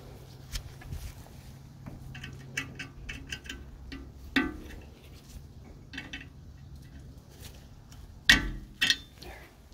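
Needle-nose pliers clicking and scraping on a small steel brake-shoe pin and the rusty brake backing plate as the pin is worked into place, with light metallic ticks and two sharp clicks near the end as the pin pops in.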